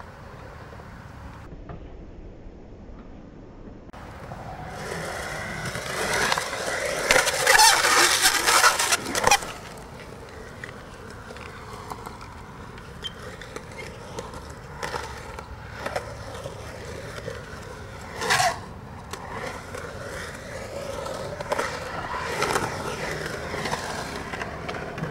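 Skateboard wheels rolling on concrete, swelling louder as the rider comes close and then cutting off abruptly about nine seconds in; a single short sharp hit about eighteen seconds in, and the rolling comes back near the end.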